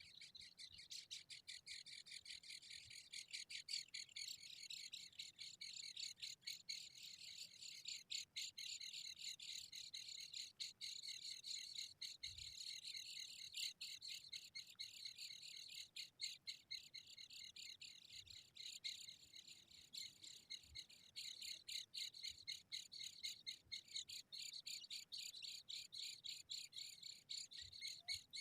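Zebra finch chicks calling: a continuous, dense run of rapid high-pitched chirps.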